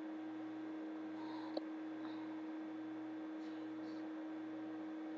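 A single short hiccup about one and a half seconds in, over a steady electrical hum.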